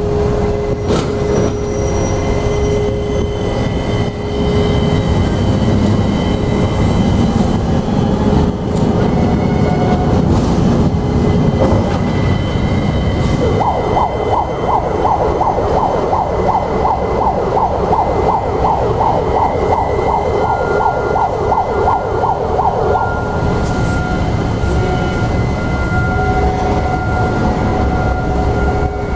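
Container-port cargo machinery: a steady low drone with a few held hums from the gantry cranes and quay equipment. About halfway through, a warbling warning alarm sounds, pulsing about three times a second for some nine seconds, and a higher steady hum joins near the end.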